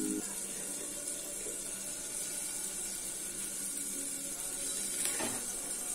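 Faint wet scraping of a steel spoon scooping prawn curry from a steel wok into a hollowed green coconut, with one slightly louder brief scrape about five seconds in.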